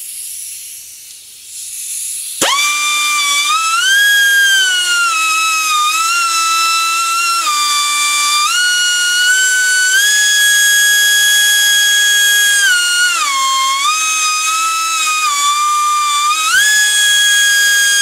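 Kobalt air (pneumatic) die grinder running free with no load, a high whine that starts a couple of seconds in. Its pitch steps up and down several times as the speed is varied.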